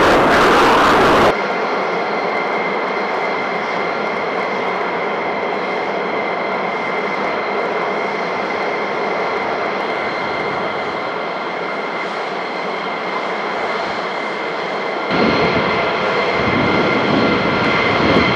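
Military jet engines running on a flight line: a steady, loud turbine rush with a high, even whine. The sound changes abruptly about a second in and again near the end.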